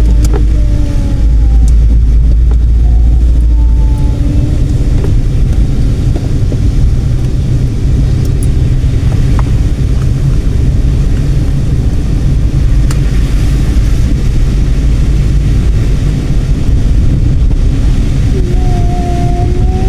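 Car driving along a road, heard from inside: a loud, steady low rumble of engine and road noise, heaviest for the first few seconds. A few faint wavering tones come near the start and again near the end.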